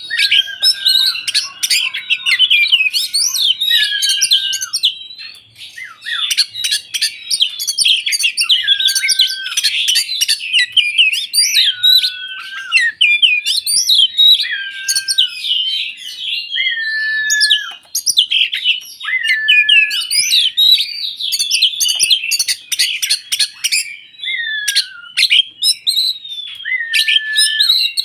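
Oriental magpie-robin (kacer) singing without a break: a fast, varied run of chirps, whistles and quick clicking notes, with a lower whistle that drops at its end coming back every few seconds.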